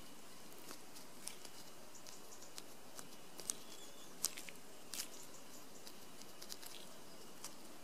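Faint, scattered small ticks and soft handling sounds of fingers pressing and working Sugru mouldable rubber putty onto a MacBook charger cable, over a steady low hiss.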